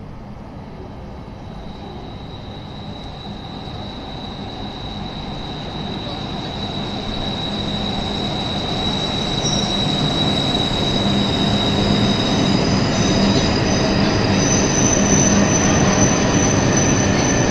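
Tohoku Shinkansen Hayabusa train pulling into the station, its rushing running noise growing steadily louder as it comes in. A high steady whine sounds through most of it, joined by a higher-pitched one near the end.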